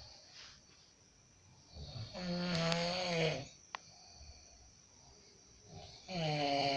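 Snoring: two long, pitched snores about four seconds apart, each lasting about a second and a half.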